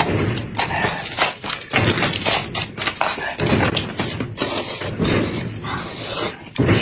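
Noodle slurping and chewing in many short bursts: hot-and-sour sweet potato vermicelli being sucked up from bowls of broth. A second person joins in near the end.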